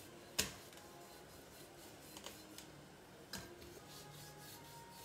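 A knife cutting through a raw beef brisket held over a stainless steel bowl: faint slicing and handling sounds, with a sharp click about half a second in and a softer one a little past three seconds.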